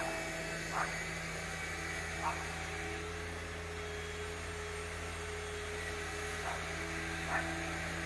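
A steady low hum made of several constant tones, with four brief, faint calls above it.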